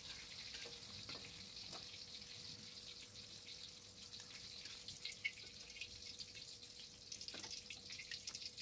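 Tempeh frying in shallow oil in a wok: a faint, steady sizzle full of fine crackles, with a few light clicks of the spatula against the wok as the pieces are lifted out.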